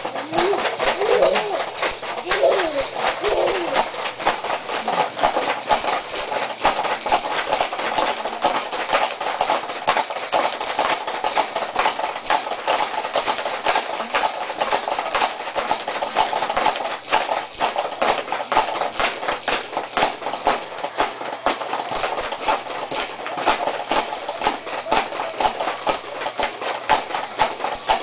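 Baby activity jumper rattling and clattering rapidly and unevenly as the baby bounces in it, its seat, springs and attached toys knocking together. A few short voice sounds come in the first three seconds.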